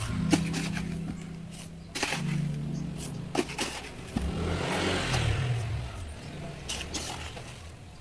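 Background music with held low notes, over scattered clicks and scrapes of handling, and a rush of noise that swells and fades about halfway through.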